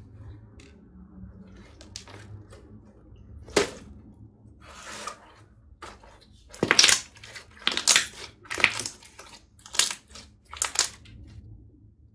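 Green glitter slime being stretched, folded and squeezed by hand: a quiet first half with a few light clicks and one sharp snap, then about six short, loud sticky pops as the slime is bunched and pressed, with trapped air bursting.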